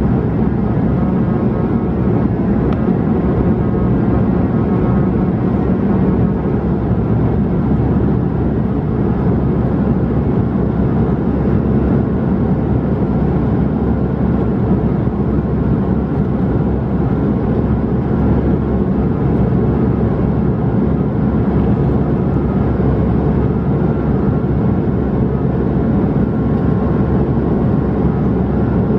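Airliner on takeoff: engines and rushing air making a steady, loud low rumble, with faint thin tones above it.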